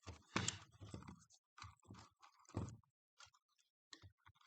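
Irregular clicks, taps and crackling scrapes from the plastic and metal parts of a cordless tool battery pack being handled and pried apart, loudest about half a second in and again near the middle.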